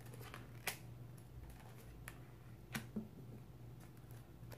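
Tarot cards being handled, drawn from the deck and laid on the table: a few faint, sharp card clicks, about a second, two seconds and nearly three seconds in.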